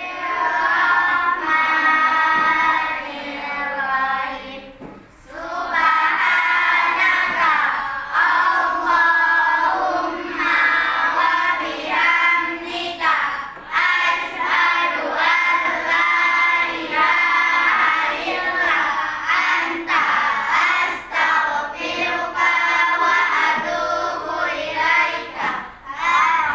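Children singing a song together, with a short break about five seconds in.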